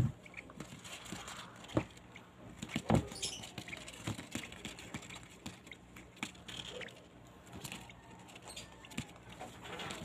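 Young hand-fed birds making faint squeaky begging calls while they shuffle on newspaper, with rustling and a few sharp taps, the loudest about two and three seconds in.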